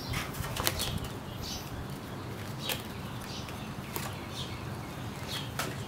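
Playing cards being handled and laid on a glass tabletop: scattered light clicks and snaps, irregular, a few a second at most.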